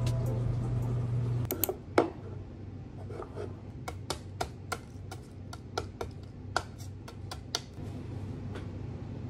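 Background music that stops about a second and a half in. Then comes a sharp knock and a run of light clicks and crackles: shells of hard-boiled eggs being tapped and cracked against a cutting board and peeled off by hand.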